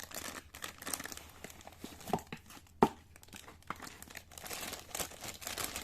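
Packaging crinkling and rustling as a moulded-case circuit breaker is lifted out of its box, with a few sharp knocks, the loudest about three seconds in.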